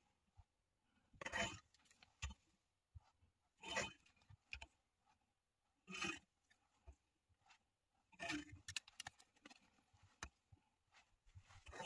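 Faint handling noises: plastic clothes hangers clicking and scraping on a hook rail and fabric rustling, in four or five short bursts separated by near silence.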